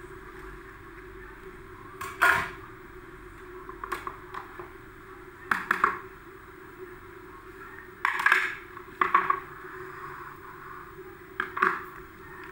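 A spatula and a plate knocking and scraping against a metal cooking pot as cabbage is pushed in and stirred: about half a dozen short clatters over a steady low hum.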